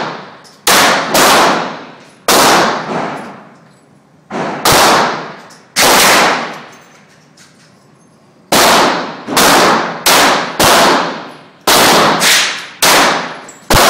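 Semi-automatic pistol shots fired one at a time, about a dozen in all, each trailing a long echo in an indoor range. There is a pause of about two and a half seconds midway, after which the shots come faster, roughly two a second.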